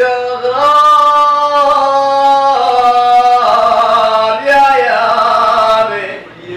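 A man singing 'ataba unaccompanied: one long phrase on drawn-out vowels, held notes stepping down in pitch a few times before it fades out near the end.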